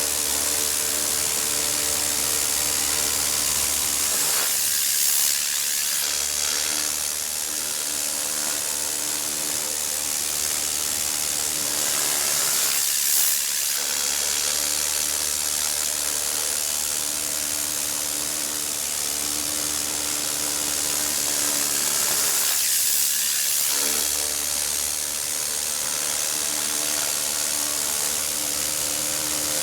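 Z-022 compressed-air vacuum cleaner running on air from a compressor: a steady loud hiss of rushing air, with a low hum underneath that drops out briefly three times.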